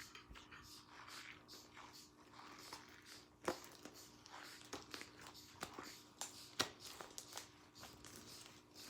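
Hands kneading and pulling sticky glue slime: faint, irregular sticky clicks and crackles, with a few sharper snaps.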